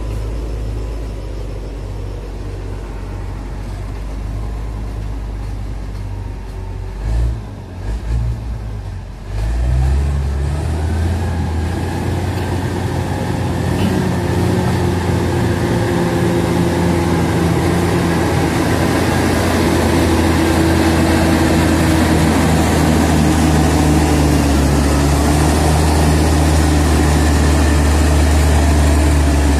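Diesel engine of a small crawler bulldozer running steadily, growing clearly louder and fuller about ten seconds in and staying that way.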